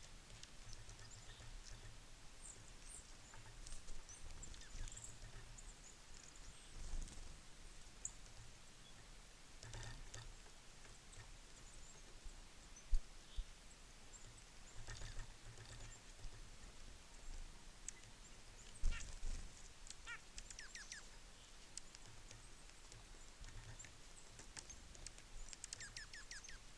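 Small winter songbirds at a feeder calling on and off with short high chirps, in quick runs now and then, over repeated soft low thumps and an occasional sharp knock.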